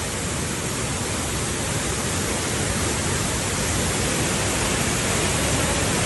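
Rushing water in heavy monsoon flow: a steady, dense rush that grows slightly louder toward the end.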